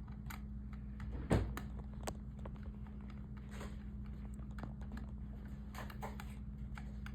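Small clicks and taps of ceiling-fan light-kit parts and screws being handled and fitted, with one sharper knock about a second and a half in, over a steady low hum.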